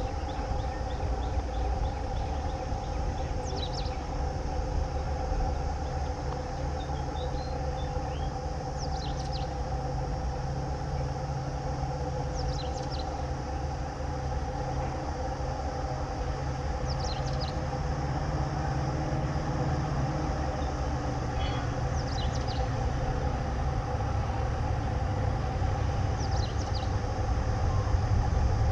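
WDG-4D diesel-electric locomotive, with its EMD 16-cylinder two-stroke engine, working hard under load as it hauls a heavy oil tanker train up a gradient: a steady low rumble with a constant hum that grows louder near the end as the locomotive draws closer.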